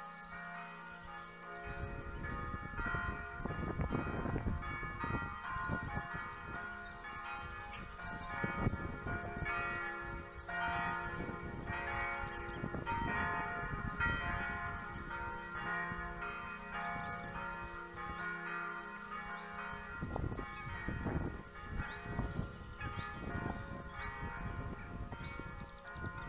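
Church bells ringing, several bells overlapping in a continuous peal.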